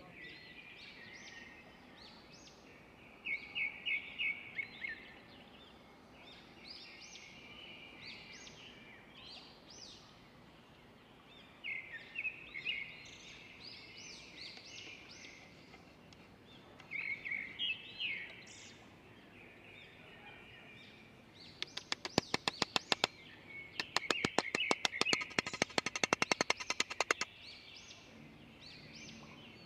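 Small birds chirping and singing in short repeated phrases. About two-thirds of the way through, a fast run of sharp clicks lasts about five seconds and is louder than the birds.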